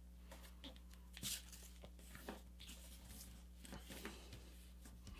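Faint rustling and scraping of a sheet of A4 paper being folded and creased by hand, in a few soft strokes, the loudest about a second in, over a faint steady hum.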